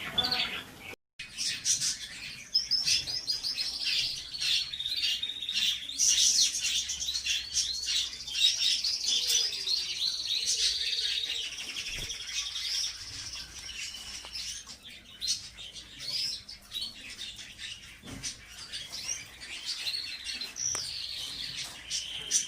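Canaries singing in their breeding room: fast rolling trills and chirps, several birds overlapping, with a brief cut in the sound about a second in.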